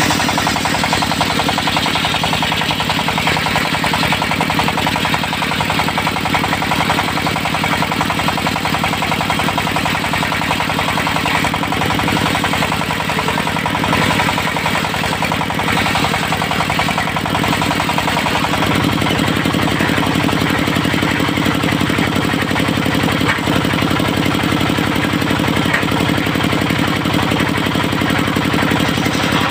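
Diesel engine of a locally built mobile circular sawmill running steadily. Its low engine note shifts slightly about two-thirds of the way through.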